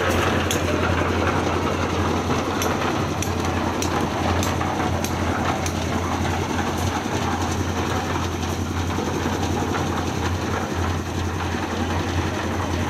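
Concrete mixer-hoist machine running: a steady low engine drone with irregular sharp metallic clicks and clatter over it.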